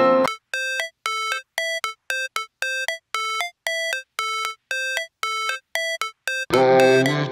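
Rapid electronic beeps, about three a second, each a short two-note chirp with silence between. About six and a half seconds in, electronic music starts.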